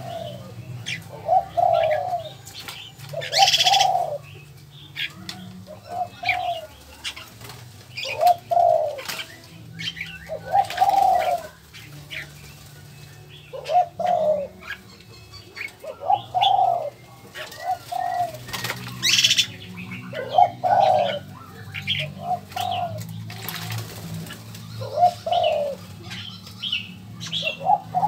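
Doves cooing over and over, short low notes in twos and threes, with scattered higher chirps from other small birds. Twice, about three seconds in and again near nineteen seconds, there is a brief burst of wing flapping.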